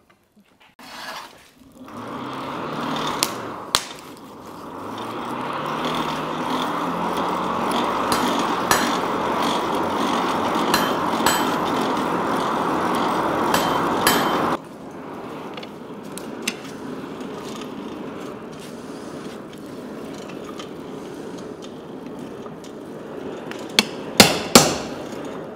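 Hand hammer striking hot steel on an anvil: a few scattered blows over a steady rushing background noise. Near the end, a quick run of louder strikes as a punch is driven into a glowing steel bar.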